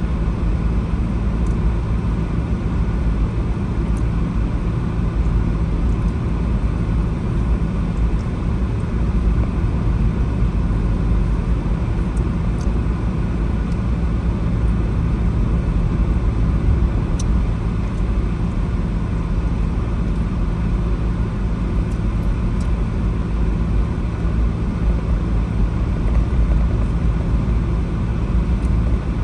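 A car driving at steady speed: continuous low engine and road rumble with a faint steady hum and a few faint clicks.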